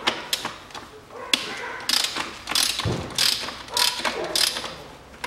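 Hand ratchet wrench on an extension clicking through a series of back-and-forth strokes, about one every half second, as it undoes a bolt holding the throttle body.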